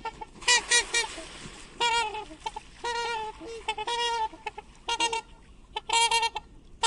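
Swan honking: a series of short, nasal, pitched calls, many in quick pairs.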